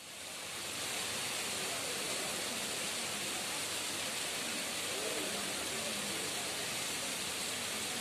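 Steady, even outdoor hiss, fading in over about the first second and then holding level.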